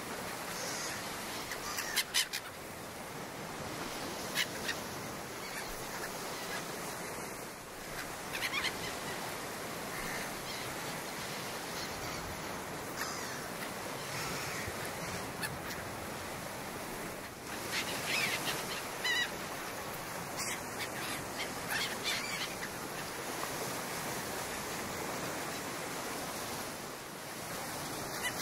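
Waterside ambience: a steady wash of water with scattered short bird calls.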